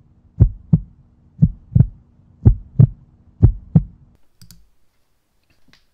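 Heartbeat sound effect: a lub-dub double thump about once a second, four beats, over a low steady hum, stopping about four seconds in. A short click follows.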